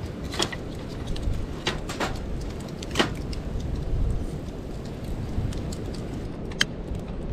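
Wood fire in an open fire pit crackling, with a few sharp pops in the first three seconds over a low, steady rumble.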